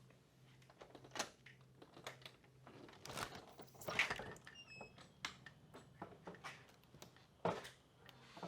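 Scattered clicks and rustles, handling noises at irregular intervals, over a faint steady low hum. About halfway through, a quick run of four short high beeps steps down in pitch.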